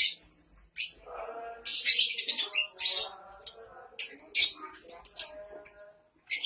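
Lovebirds calling in a rapid run of short, shrill chirps and harsh squeaks.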